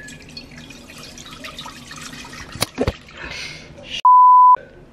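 A censor bleep: a loud, steady, single-pitched beep lasting about half a second, dubbed in about four seconds in over a spoken word, with the sound cut out around it. Before it there is light kitchen clatter and a single knock.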